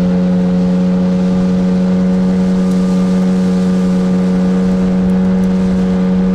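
Outboard motor pushing an inflatable boat along, running at a constant throttle with a steady, unchanging hum.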